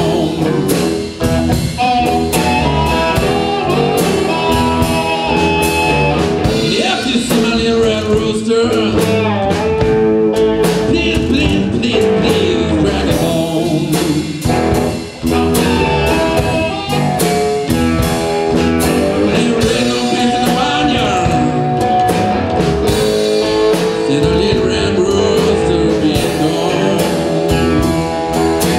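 A blues band playing live: amplified cigar box guitars over a drum kit, with long wavering guitar notes.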